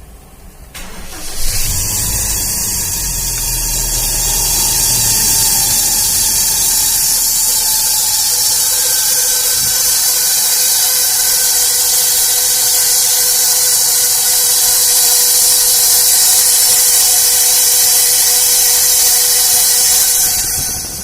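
Toyota Innova engine started about a second in and running with a very noisy, steady whine and hiss from the front of the engine. The noise comes from the accessory (fan) belt's adjusting tensioner pulley going bad. The sound cuts off suddenly near the end.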